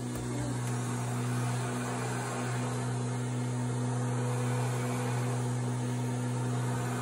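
Corded electric lawn mower running steadily outside, heard from indoors through the window glass as a continuous low motor hum.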